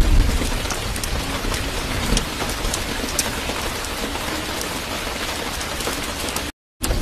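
Steady rain, with a dense hiss and scattered sharp drop ticks over a low rumble; the sound cuts out for a split second near the end.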